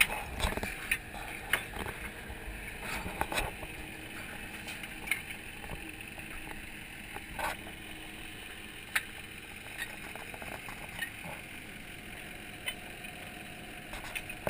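Chunks of broken concrete clunking as they are thrown from a dump trailer onto a rubble pile: scattered single knocks, most of them in the first few seconds, over a steady outdoor hum.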